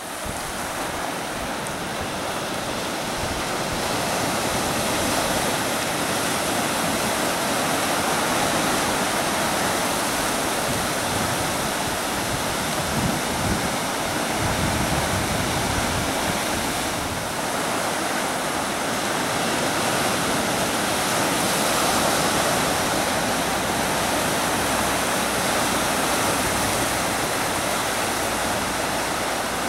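Ocean surf: small waves breaking and washing over a rocky reef shore, a steady rushing wash that fades in at the start.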